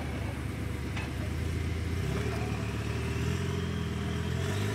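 Rock crawler buggy's engine revving under load as it climbs a steep rock ledge; the revs change about two seconds in and climb near the end.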